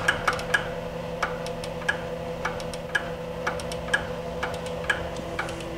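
Jones & Shipman 1307 cylindrical grinder's wheelhead infeed clicking as it plunge-feeds: sharp ticks that slow early on from several a second to about two a second as the feed rate is turned down. Under them runs the steady hum of the machine's motors and hydraulics.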